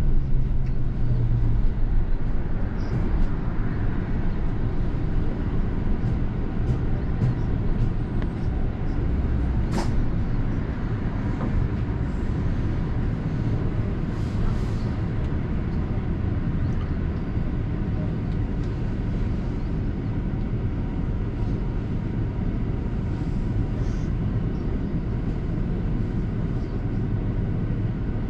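London bus running along the road, heard from inside: a steady low engine and road rumble, with a single sharp click about ten seconds in.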